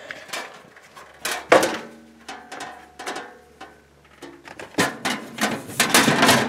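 Sheet-metal breaker panel cover being handled and fitted back onto the electrical panel: a few scattered clicks and knocks, then a louder run of metallic clattering and scraping near the end as the cover is pressed into place.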